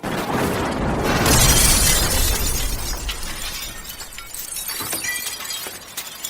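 Glass shattering: a loud crash that peaks about a second in and dies away over several seconds, with a few sharp clicks of falling pieces after it.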